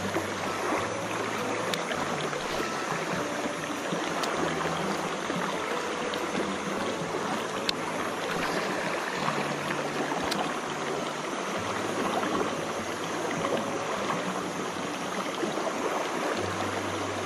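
Shallow rocky mountain stream rushing steadily over stones, with a few faint ticks.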